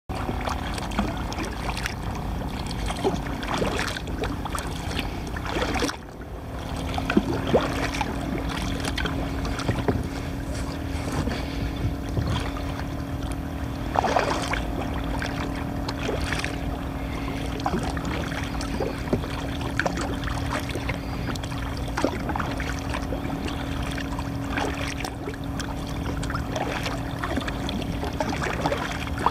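Water lapping and splashing around a fishing kayak on the sea, with scattered knocks and clicks. A steady low hum runs underneath and breaks off briefly about six seconds in.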